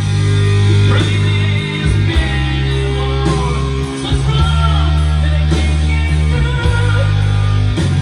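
Rock music with guitar, played back loudly from a cassette on a TASCAM 103 cassette deck; the music gets much louder right at the start.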